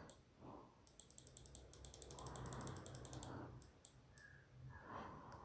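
Faint computer mouse scroll wheel ticking in a fast, even run for about two and a half seconds, with a few single clicks before and after.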